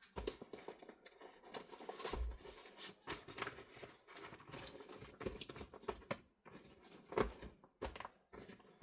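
Handling noise from a plastic foldable keyboard and tablet being moved and set in position: a string of irregular light knocks and clicks, with two firmer thunks about two seconds in and near the seven-second mark.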